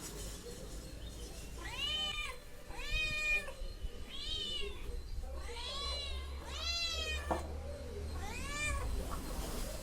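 A cat meowing repeatedly: six short meows, each rising and then falling in pitch, about a second apart.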